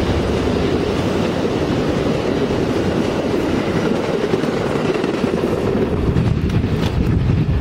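Amtrak Superliner bilevel passenger cars passing close by at speed: a steady rush of wheel and rail noise. Near the end the sound thins as the train moves away.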